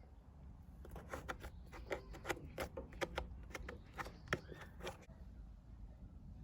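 A quick, irregular run of about a dozen sharp clicks and taps, which stops about five seconds in.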